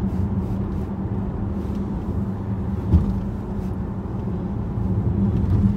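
Inside the cabin of a 2011 Dodge Charger R/T on the move: its 5.7-litre Hemi V8 hums steadily under road and tyre noise. There is a light thump about three seconds in.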